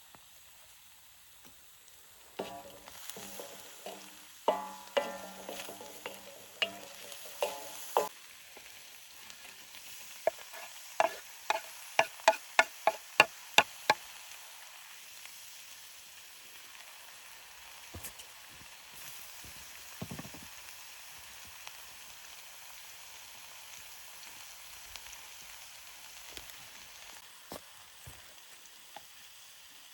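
Chicken frying in a saç, a Turkish metal griddle pan, stirred with a metal utensil. A few seconds in come several ringing metallic strokes and scrapes, then a quick run of about a dozen sharp clinks, then a steady faint sizzle with occasional clicks.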